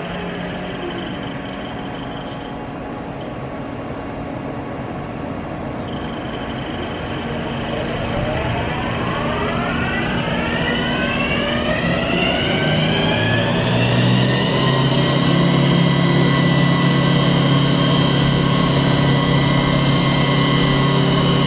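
Haas Super Mini Mill 2 CNC machining center running, its spindle spinning up: a whine that rises in pitch for about seven seconds, starting about a third of the way in, then holds steady at speed as the machine grows louder.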